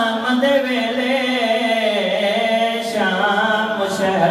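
A man's voice chanting in long, melodic held notes, unaccompanied: a Shia zakir's sung recitation at a majlis.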